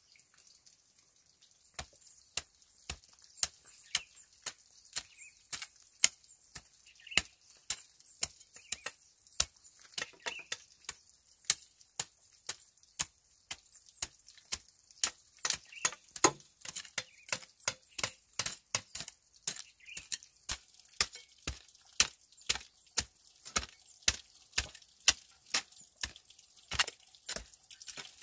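A hand tool striking over and over, sharp short chopping blows at about two to three a second, starting about two seconds in.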